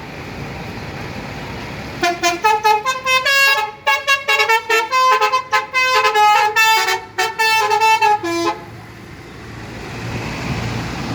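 A bus's basuri-type telolet horn, a set of multi-tone air horns, plays a quick tune of short notes changing pitch several times a second for about six seconds. It stops suddenly, leaving a bus engine running, which grows louder near the end.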